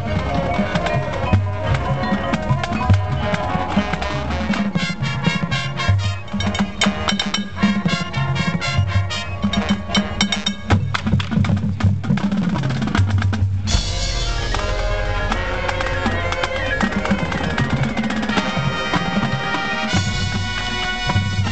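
Marching band playing live: drums and percussion carry a fast rhythmic passage, then a little past halfway the full band comes in suddenly with loud held chords over the percussion.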